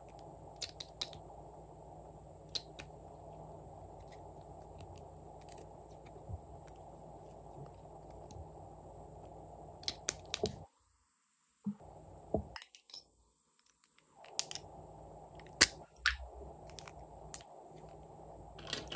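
Scattered sharp clicks and taps of plastic lip gloss tubes, caps and lipsticks being handled over a bowl of slime, with one louder click a little past the middle. They sit over a low steady hiss that cuts out twice a little past halfway.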